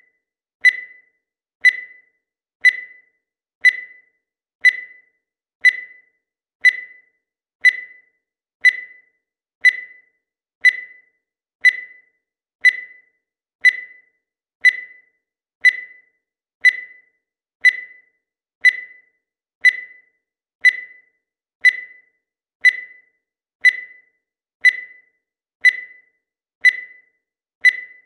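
Digital timer beeping once every second: a short, high beep that starts sharply and fades quickly, repeating at a steady even pace.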